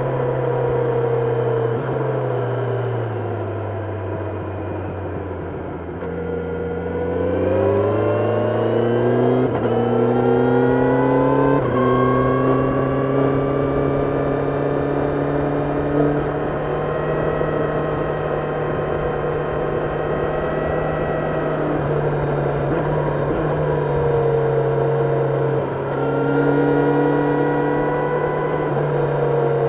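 Kawasaki Ninja 1000SX inline-four engine heard onboard. The revs drop off for the first few seconds, then climb hard under acceleration with an upshift about twelve seconds in. It holds a fairly steady pitch at cruising speed, eases off briefly a few seconds before the end, and picks up again.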